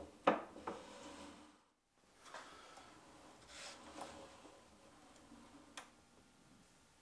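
Drill press feed handles and quill being worked by hand: a few sharp clicks and knocks with some light rubbing, over a faint steady hum.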